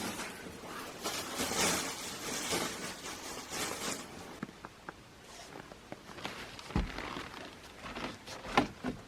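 Rustling and handling noises, then several separate knocks and clicks, the sharpest near the end.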